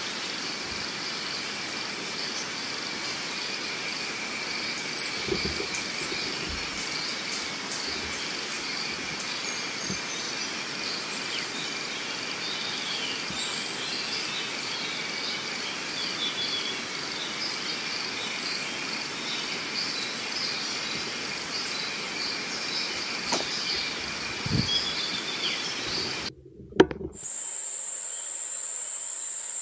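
Steady high-pitched insect chorus with a regular click about once a second and a few bird chirps over it. Near the end a single sharp pop, after which only one even, high insect whine remains.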